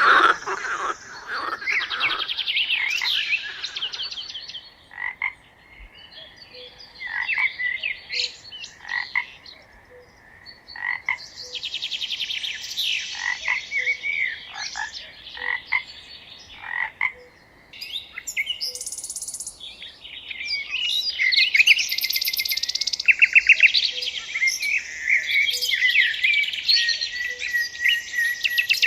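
Songbirds singing in a dawn-chorus mix of chirps, whistled phrases and fast trills, with frogs croaking, loudest at the very start. A faint low note repeats about every one and a half seconds underneath.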